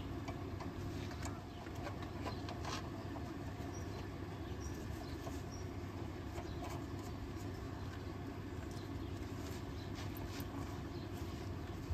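Steady low background hum, with a few faint, sharp clicks of hands working metal parts and a nut on the steering linkage.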